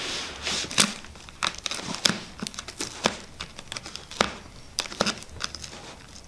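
Plastic wrap on a cardboard parcel crinkling as it is scratched and picked at with a fishing hook, with sharp, irregular crackles.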